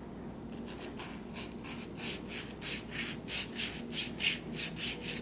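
Flat hand file scraping the ends of an annealed copper-wire loop, squaring them so they meet up. The strokes are short and even, about three a second, and start about a second in.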